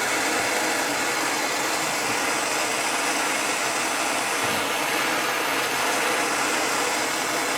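Steady rushing hiss of a heating tool playing on a stuck metal part to loosen it.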